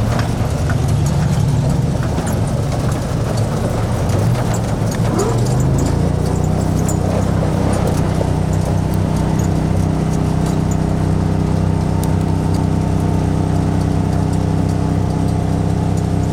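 Engine of a Mule utility vehicle running while it pushes a sprint car. The pitch shifts for the first few seconds, then settles into a steady drone about six seconds in.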